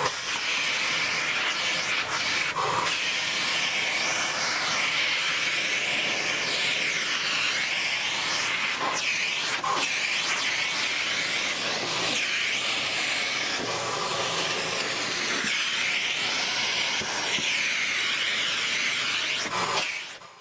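Dyson vacuum cleaner running steadily, a loud rushing hiss whose tone sweeps up and down, dropping away at the very end.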